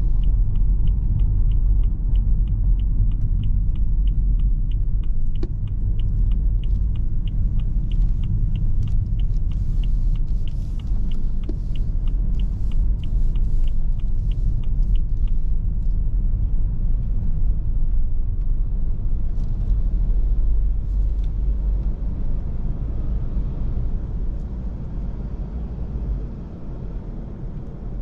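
Low rumble of a BMW heard from inside the cabin as it drives slowly. For roughly the first half a turn-signal indicator ticks evenly, about three times a second, then stops. The rumble eases off near the end.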